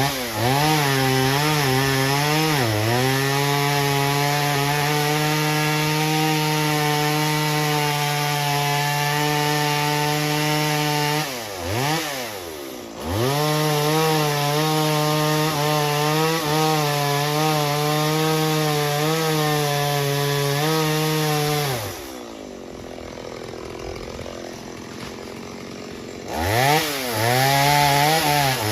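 Chainsaw running at full throttle while cutting a tree trunk, its pitch sagging and recovering as the chain loads in the wood. It drops off briefly about twelve seconds in, and again for a few seconds near the end, before revving back up.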